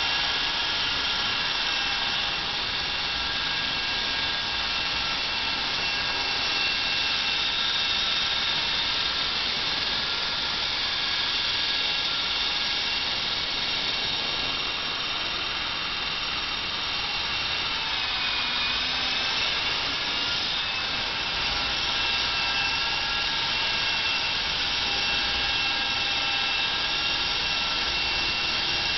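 Honey Bee electric RC model helicopter running, its motor and rotor making a steady high whine. About two-thirds of the way through the whine dips briefly in pitch and then comes back up.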